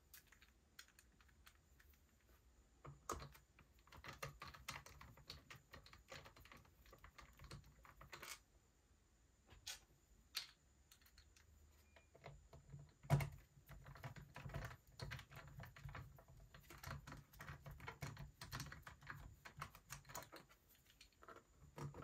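Faint, irregular small clicks and ticks of a hand screwdriver driving screws into a laptop's plastic bottom case, with hands shifting the case; the clicks grow denser in the second half, with one sharper click about 13 seconds in.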